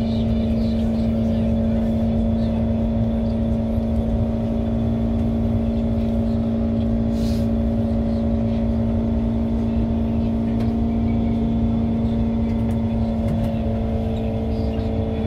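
SMRT Kawasaki Heavy Industries C151 metro train running at a steady speed: a low rumble of wheels on rail under a steady hum of several fixed tones from the traction equipment. A further tone joins the hum near the end.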